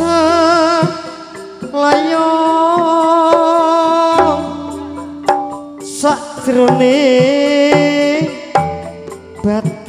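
Live Javanese campursari gamelan music: a singer holds two long, wavering notes over kendang hand-drum strokes and gamelan tones.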